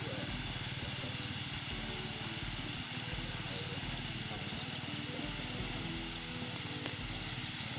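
A small engine running steadily with a rapid, even beat, over a steady hiss of water splashing across the pond surface.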